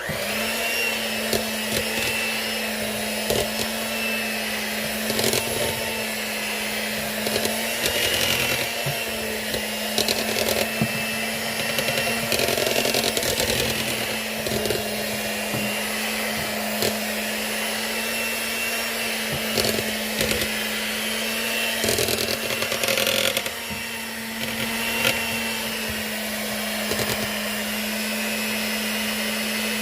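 Electric mixer beating cake batter. The motor switches on at the start and runs at a steady hum, with frequent short knocks from the beaters against the bowl.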